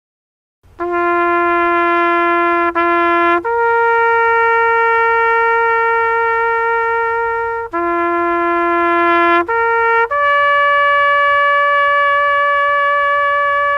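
Trumpet-sounding music playing a slow rising call of long held notes: a low note with a short repeat, a higher note held about four seconds, then the same again climbing to a still higher final note held to the end.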